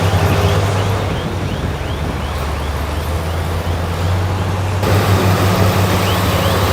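Heavy diesel earthmoving machinery running steadily with a deep engine drone, and a faint chirp repeating about twice a second. The sound changes abruptly about five seconds in.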